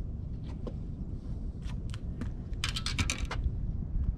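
A few light clicks and a quick rattling run of ticks from handling a just-caught crappie and the fishing tackle, over a steady low rumble.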